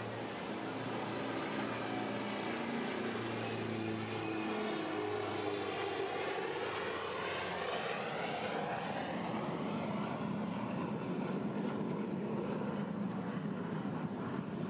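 An airplane flying past: broad, rushing engine noise that grows a little louder a few seconds in and sweeps in pitch as it goes by.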